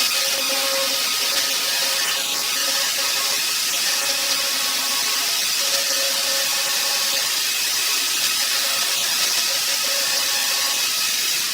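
Electric drill running at a steady speed, with a high hiss over its motor whine.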